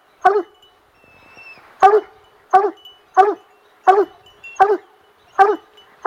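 Plott hound barking in a steady rhythm, about one bark every 0.7 seconds after a short pause about a second in.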